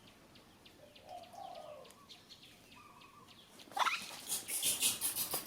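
Birds chirping in the background, with a short gliding call early on. About two-thirds through, a louder rising call and a burst of rustling noise, the loudest sound here.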